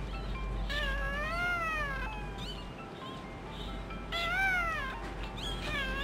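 Newborn puppy crying with high, drawn-out squealing cries that rise and fall in pitch, as it is rubbed with cotton just after birth. Two long cries of about a second, with a short yelp between them and another cry starting at the end.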